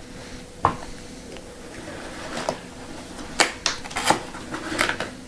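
Small objects handled on a tabletop: a handful of short, light clicks and taps at irregular intervals, over a faint steady hum.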